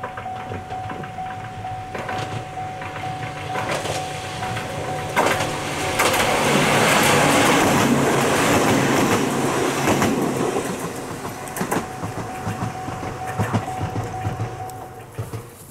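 Ohmi Railway 800-series two-car electric train approaching, passing close and receding. The wheels clack over rail joints, and the run is loudest about six to ten seconds in as the cars go by. A steady high tone is heard before and after the pass.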